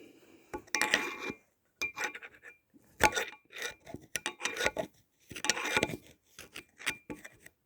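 Screwdriver scraping in a ZMZ 406 crankshaft's oil passage: irregular metal-on-metal scrapes and clinks, some with a faint ring, digging at packed oil sludge.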